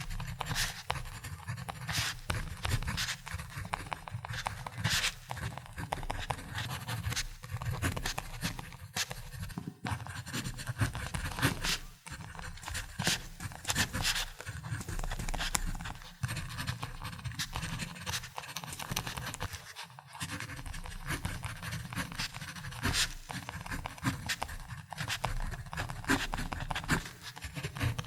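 Ballpoint pen writing on paper: a continuous run of short scratchy strokes and taps, with brief pauses between words.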